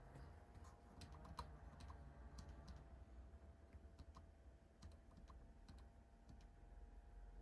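Faint computer keyboard typing: a dozen or so irregular key clicks, over a low steady hum.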